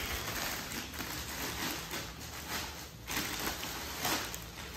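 Plastic packaging crinkling and rustling as a plastic-wrapped motorcycle cover is handled and pulled from its plastic courier bag, a little louder in the last couple of seconds.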